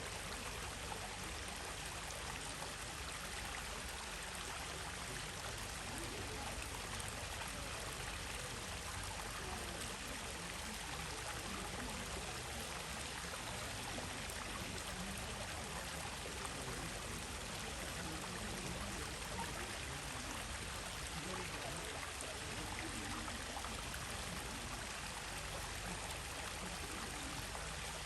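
Stream water running steadily, an even rushing sound with no break or change.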